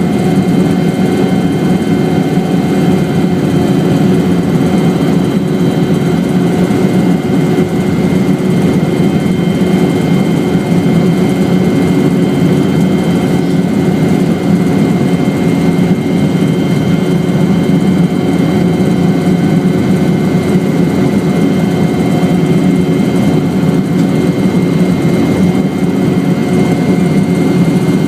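Helicopter running steadily: a loud, even drone with several constant whining tones over it and no change in pitch or level.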